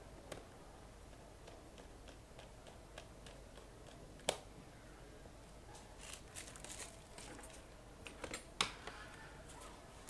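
Small plastic and metal clicks and taps from a screwdriver working on the screws of a ThinkPad T500's plastic display lid, with a sharp click about four seconds in and more clicks and knocks between about six and nine seconds as the lid is handled.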